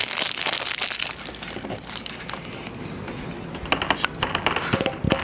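Continuous crinkling and crackling, like something being crumpled and crushed by hand, made dense with many small clicks, with a few sharper separate clicks near the end.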